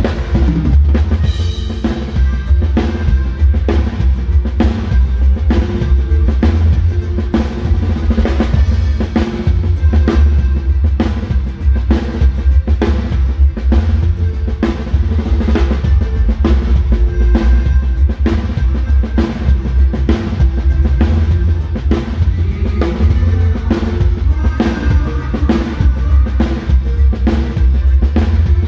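A drum kit played to a norteño band song: steady bass drum, snare and cymbal strokes over a heavy bass line and other band instruments.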